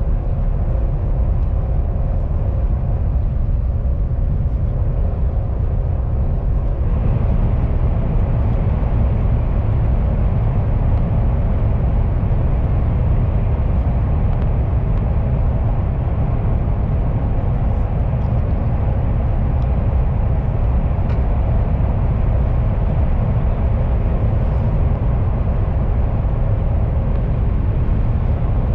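Cabin noise of a KTX high-speed train running at speed: a steady, heavy low rumble. About seven seconds in it grows brighter and a little louder as the train enters a tunnel.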